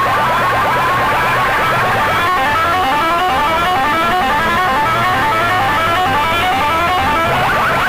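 Loud DJ music played through a sound system: fast runs of short rising electronic notes repeat over a steady bass note without a break.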